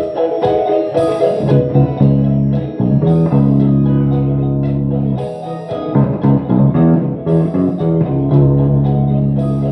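Electric guitar music played live: chords over long held low notes, with a short hissy accent about every two seconds.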